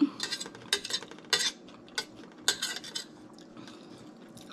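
A metal spoon scraping and clinking in an escargot dish, scooping up the baked cheese, onion and garlic topping. There are several quick scrapes in the first three seconds, then it goes quiet.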